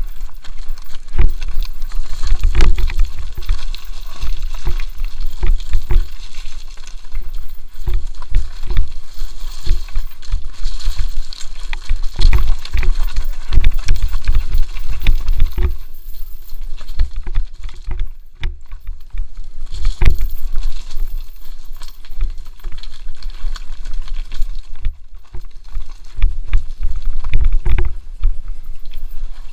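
Mountain bike descending a rough, rocky trail: constant irregular rattling and knocking from the bike and camera mount as it hits rocks, over a steady low rumble of wind on the microphone. It eases a little for a few seconds midway.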